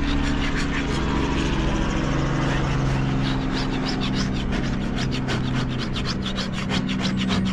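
Plastic scraper rasping over stripper-softened antifouling bottom paint on a fibreglass trimaran float, in short repeated strokes that come thicker and faster from about three seconds in; the thick paint is not coming off cleanly, so the scraper is pushed hard. A steady low engine-like hum runs underneath.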